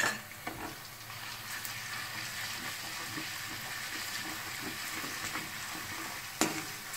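Chopped onions, curry leaves and ginger-garlic paste sizzling steadily in hot oil in a kadhai while a wooden spoon stirs and scrapes them around the pan, with a single sharp knock about six and a half seconds in.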